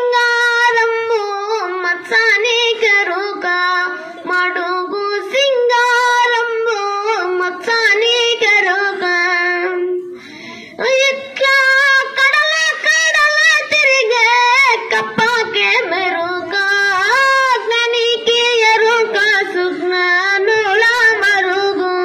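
A boy singing solo into a handheld microphone, a high voice holding long notes that bend and waver, with no accompaniment. He breaks off briefly for breath about ten seconds in, then carries on.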